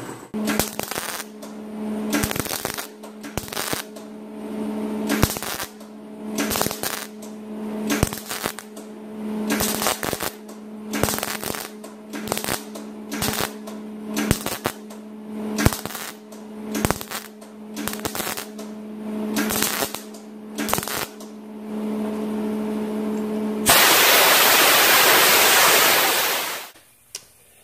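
Welder laying a string of short spot welds on sheet steel, a brief crackle roughly once a second, over a steady low hum. Near the end a compressed-air blow-off gun hisses for about three seconds, cooling the welds.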